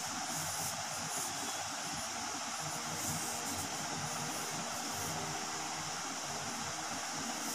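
Steady background hiss with a faint low hum beneath it.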